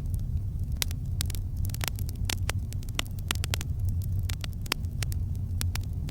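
Wood campfire crackling: many sharp, irregular pops and snaps over a steady low rumble of the burning fire.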